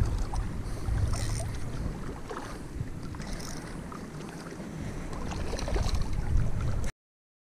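Wind buffeting the microphone, with light water splashing as a small smallmouth bass is reeled to the surface, louder toward the end; the sound cuts off abruptly about seven seconds in.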